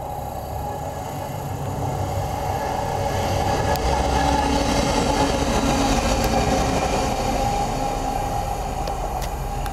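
Freightliner Class 70 diesel locomotive (GE PowerHaul V16 engine) running light, with no train behind it, passing at speed. Engine and wheel noise build up as it comes closer, are loudest about four to six seconds in, then ease off as it goes away.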